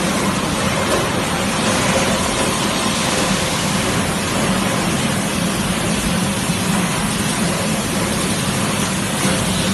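Bottled-water washing, filling and capping line running: a steady rushing hiss over a low hum, with faint steady tones and no distinct knocks.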